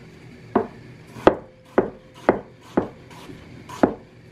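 A 10-inch butcher knife chopping peeled apple into small cubes on a wooden cutting board: six sharp knocks of the blade through the fruit onto the board, about two a second, with a longer pause before the last one.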